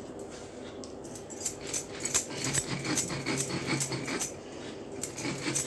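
Dry ginger and sugar being ground on a flat stone grinding slab with a stone: quick, gritty scraping strokes, several a second. They pause for under a second past the middle, then start again.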